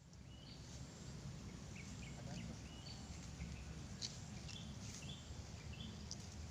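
Rural outdoor ambience: short, high bird chirps, scattered every second or so, over a low steady rumble.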